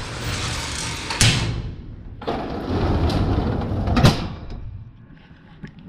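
Freight elevator's collapsible metal scissor gate slid shut, the sliding noise ending in a clang about a second in; then the landing door is slid shut, ending in a second bang about four seconds in.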